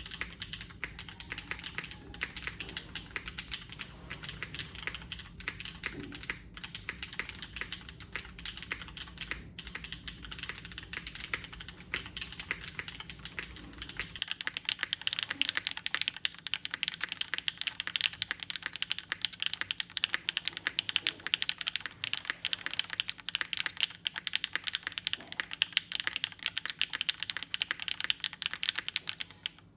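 Continuous fast typing on a Rose TKL mechanical keyboard with a full aluminum plate, BCP switches on 60g springs and GMK keycaps. The keystrokes get louder about halfway through, where a low background hum stops.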